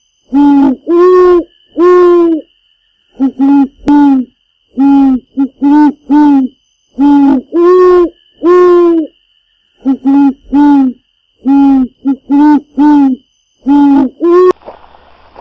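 Owl-like hooting used as an intro sound effect: loud, clean, evenly pitched hoots, some short and some drawn out, in a pattern that repeats with silent gaps between groups. It cuts off sharply near the end, leaving faint background noise.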